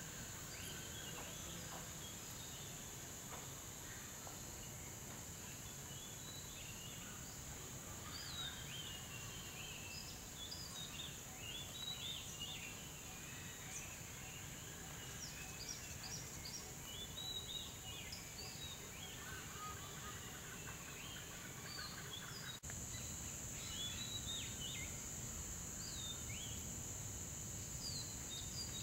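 Forest birds calling: a busy run of short chirps and whistles, many of them falling in pitch, over a steady high insect drone.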